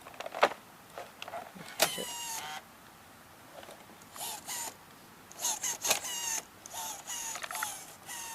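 Sears/Hitachi full-size VHS camcorder's cassette eject mechanism working: a sharp click, then about four short squeaky, whirring bursts from a motor or gear train, with pauses between them.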